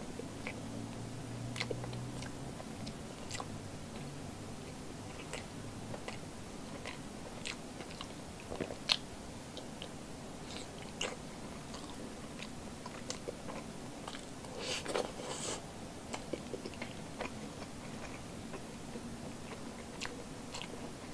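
A person eating soft milkfish fat with her fingers: chewing, with wet lip smacks and small mouth clicks scattered throughout and a denser run of smacks about fifteen seconds in.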